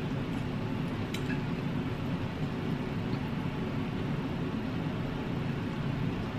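Electric pedestal fan running with a steady whir, with a few faint clicks from eating spaghetti with a fork.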